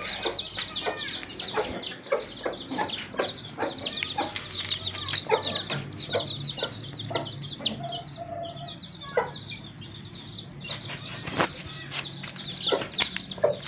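A brood of eight-day-old chicks peeping constantly in quick, high, falling notes, while the Aseel broody hen clucks lower among them. The peeping thins out briefly about halfway through.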